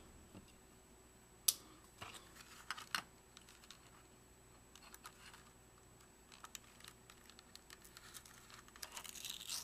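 Light plastic clicks and taps from the opened housing of a Vivitar 2800 flash being handled and probed with a small tool, scattered and irregular, with one sharper click about a second and a half in.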